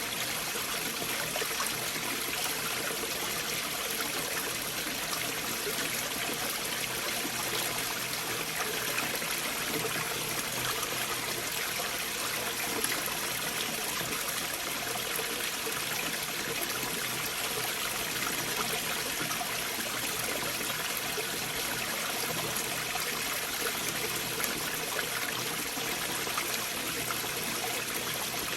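A stream flowing beneath large boulders: the water runs with a steady, even rushing and burbling that never stops or changes.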